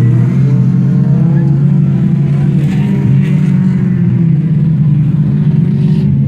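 Several autocross cars racing past on a dirt track, their engines running hard. The engine pitch rises and falls as they rev.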